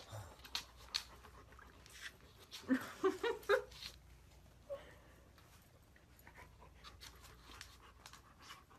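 A large dog whimpering in a few short whines that bend up and down about three seconds in, with scattered clicks and rustles around them.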